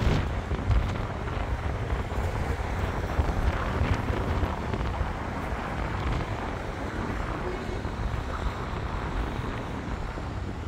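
City street ambience: road traffic running along a busy street, with wind buffeting the microphone.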